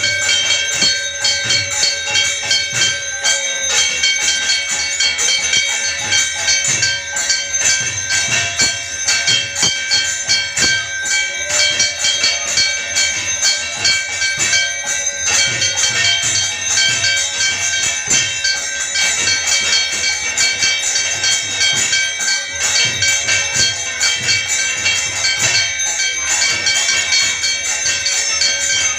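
Temple bells and metal percussion ringing without a break in a fast, steady rhythm: the bell accompaniment of a Hindu arati.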